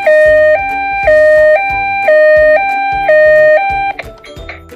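Toy ambulance's electronic sound unit playing a two-tone siren through its small speaker, a high note and a low note alternating about every half second, stopping near the end.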